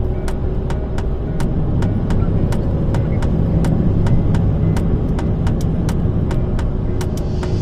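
Steady low rumble of a moving vehicle, with sharp clicks repeating evenly about three times a second.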